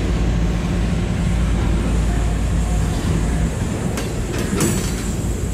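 Freight train of refrigerated boxcars rolling past, steel wheels running on the rails with a steady rumble. There are two short sharp clanks about four seconds in.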